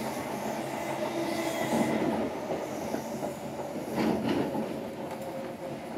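Interior of a Class 321 electric multiple unit running at speed: a steady whine from its Brush TM2141C traction motors fades out about two seconds in, leaving the rumble of wheels on rail, with a few clicks from rail joints around four seconds in.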